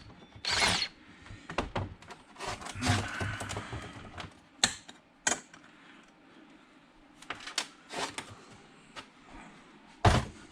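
A brief whir of a power drill-driver under a second in, then scattered clicks and knocks of tools and chainsaw parts being handled on a workbench.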